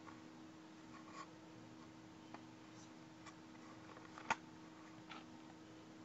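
Near silence: room tone with a steady low hum and a few faint scattered clicks, the loudest about four seconds in.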